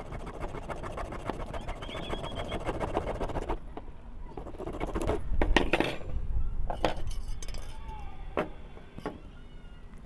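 Screwdriver scraping and prying at the thin steel can of a cylindrical lithium-ion cell: a rapid rasping for the first few seconds, then several sharp metal clicks and knocks as the casing is levered open.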